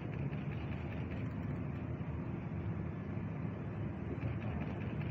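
Steady low hum and rumble of a Tobu 350 series electric train standing at a station platform.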